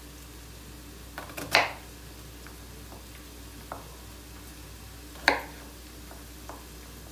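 Chef's knife cutting celeriac into cubes on a wooden cutting board: two sharp knocks of the blade on the board, about a second and a half and about five seconds in, with a few lighter taps between. Under them a faint, steady sizzle of onions frying in the pan.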